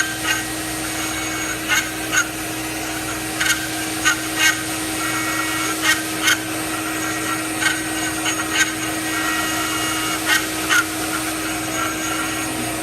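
A machine running with a steady hum. Short sharp sounds cut through it, mostly in pairs, about every two seconds.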